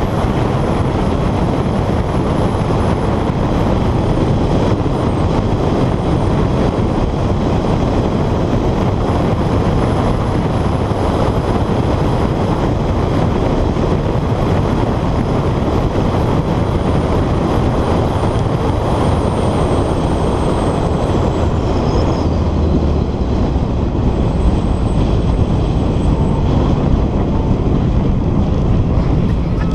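Honda CR-X engine running hard at speed, mixed with heavy wind rush on a camera mounted outside the car. Late on, the revs drop as the car slows.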